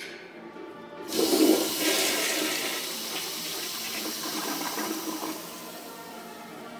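Toilet flushing: the water starts with a sudden loud rush about a second in, then keeps swirling and draining steadily, easing off near the end.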